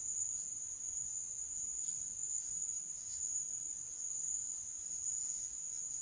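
Crickets trilling: one continuous high-pitched drone that holds steady without a break.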